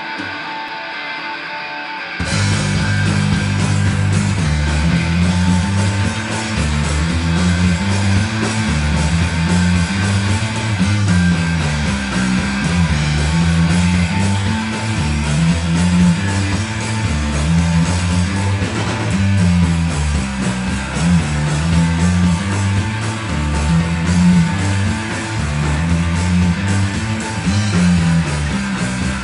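Live rock band playing an instrumental passage. A guitar plays alone at first, then about two seconds in the full band comes in with a repeating bass riff.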